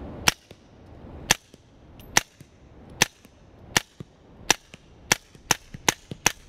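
Suppressed 9 mm shots from a B&T KH9 firing 147-grain ball into a dirt berm, about ten rounds at a steady pace that quickens near the end. Each shot is quiet enough that the bullet's thud into the dirt backstop can be heard, about as loud as the gunshot itself.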